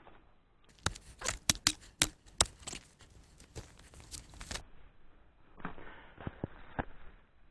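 Crunching of snow and sharp knocks as a wooden pole is worked through the snow into an open-water hole in a frozen stream. There is a quick run of crunches about a second in, then a few quieter ones after a pause.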